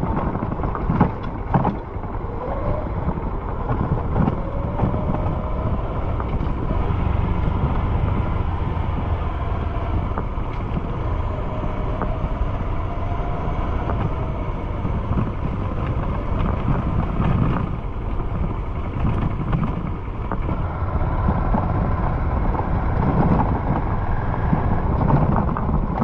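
A Honda CG 150 Fan motorcycle riding, its single-cylinder engine running steadily under wind noise on the microphone. Its empty top box rattles; the rider calls this a "batedeira" and puts it down to the box being empty.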